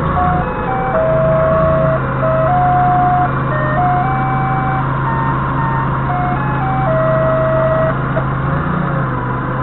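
A short electronic melody of single clear beeping notes plays for about eight seconds and then stops, over the steady low hum of the Doosan 4.5-ton forklift's diesel engine idling.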